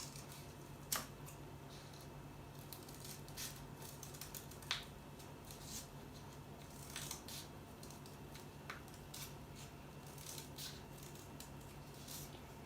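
Scissors cutting through folded paper, a run of short crisp snips with a few sharper ones.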